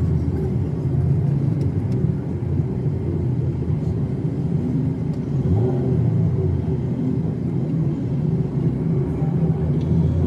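A steady low rumble of engine and road noise inside the cabin of a moving car.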